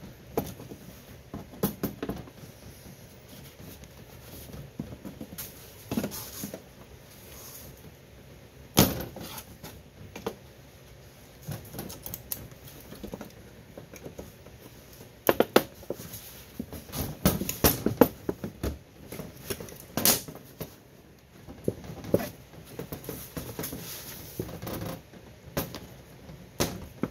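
Pliers gripping and peeling back the sealed sheet-metal strip of a soldered ammo tin, giving irregular metallic clicks, scrapes and knocks, loudest about 9 seconds in and again between about 15 and 20 seconds.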